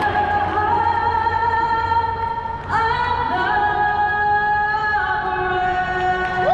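A woman singing the national anthem over the stadium's public-address system, holding long notes. The pitch steps up a little under three seconds in.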